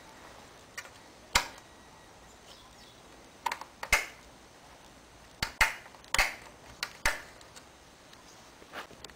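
About ten sharp, irregular metallic clicks and taps as a hand works the key in the ignition switch on top of the headlight housing of an old Soviet boxer motorcycle.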